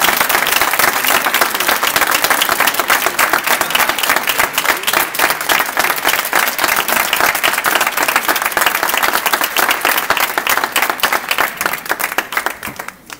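Audience applauding: dense, loud clapping from a crowd that thins out and dies away near the end.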